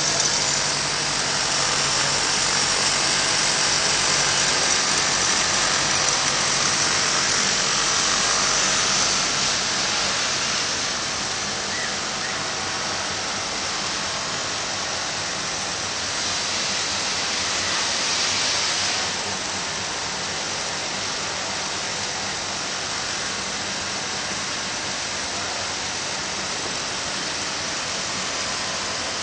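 Industrial carpet overlock (serging) machine running: a steady mechanical whir with a hiss. It is louder for about the first ten seconds, then settles a little quieter, with a brief swell just before halfway through the remaining time.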